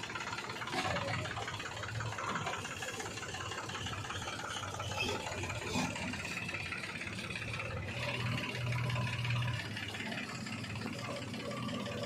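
Diesel engine of earth-moving machinery running steadily at low revs, with a low hum that swells briefly about eight seconds in and a few light knocks.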